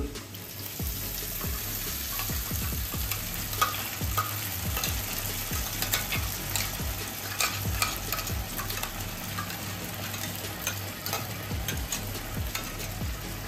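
Wet masala paste of yogurt, green chillies and cashews sizzling steadily as it is spooned into hot oil and fried onions in a kadai. Many small clicks and scrapes from a spoon scraping the steel grinder jar and a spatula stirring the pan.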